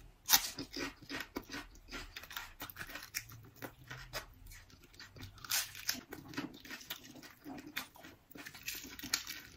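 Crisp iceberg lettuce snapping as it is bitten off, close to the microphone, with one loud crunch about a quarter-second in, then repeated crunching as the leaf is chewed.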